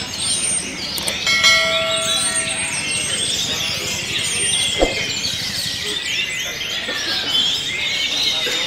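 A dense chorus of caged songbirds, orange-headed thrushes among them, singing over one another in overlapping whistles and trills. About a second in, a steady ringing tone sounds for about a second and a half.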